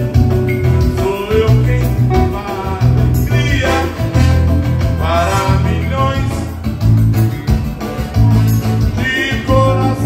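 A live band playing dance music: a man singing into a microphone over amplified keyboard and a steady, heavy bass beat.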